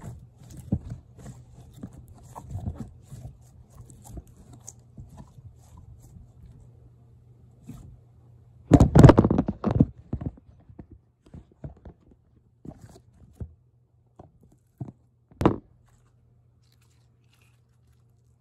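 Soft orange slime being squeezed and stretched by hand, giving small wet squishes, pops and clicks. A louder burst of noise comes about nine seconds in, followed by scattered single pops, over a low steady hum.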